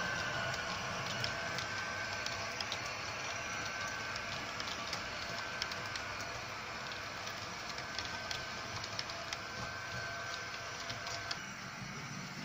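Model train rolling past on its track: a steady running rattle of small metal wheels on rail, with many light irregular clicks. It gets a little quieter near the end.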